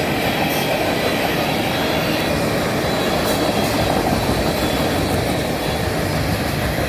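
Freight cars of a manifest train rolling past: a steady rumble of steel wheels on rail.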